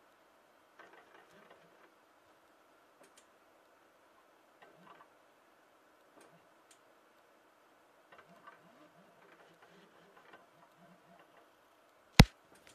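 Stepper motors of a homemade CNC machine running with a faint steady whine and soft irregular ticking. One sharp, loud click near the end.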